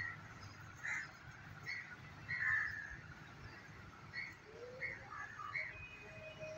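Birds calling outdoors: many short calls, roughly one or two a second, over a low steady rumble.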